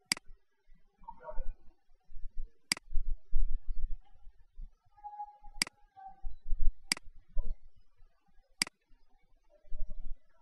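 Computer mouse button clicking five times, single sharp clicks one to three seconds apart, over irregular low thumps and rumble.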